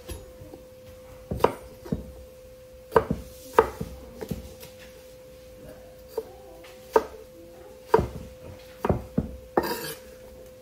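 Kitchen knife dicing potatoes on a cutting board: about a dozen sharp, irregular chops with short pauses between them, over a steady hum.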